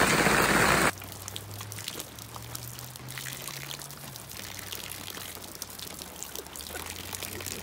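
A thin stream of rainwater pours and trickles steadily into a muddy puddle, with small splashes as a dog laps at the falling water. For the first second there is louder rain and music, which cuts off suddenly.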